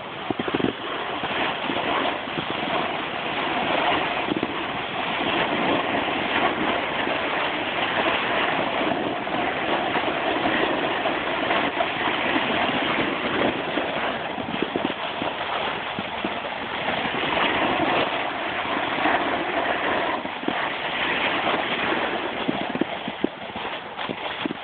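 Steady rushing scrape of riding down a ski slope: edges sliding over packed snow, mixed with wind on the phone's microphone, with small knocks from bumps in the run.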